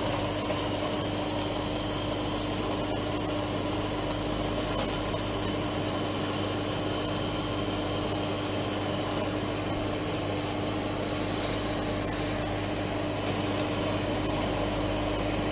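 Handheld kitchen gas torch burning with a steady hiss as its flame sears the salmon on a sushi roll, held evenly with no breaks.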